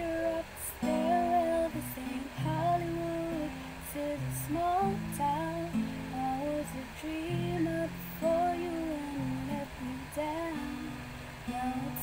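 A woman singing a slow melody over her own acoustic guitar accompaniment.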